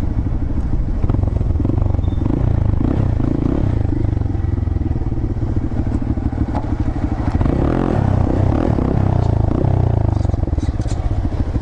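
Honda Grom's small single-cylinder engine running while riding, steady with the pitch shifting up and down around the middle as the throttle changes.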